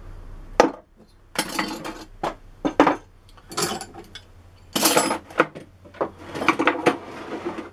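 Irregular clinks, knocks and clattering of hand tools and small metal objects being handled and moved on a wooden workbench. A sharp click about half a second in, after which a low background hum stops.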